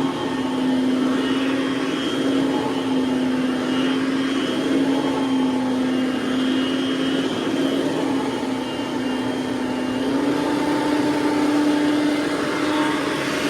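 Hoover WindTunnel Platinum upright vacuum cleaner running steadily, its motor hum rising slightly in pitch about ten seconds in.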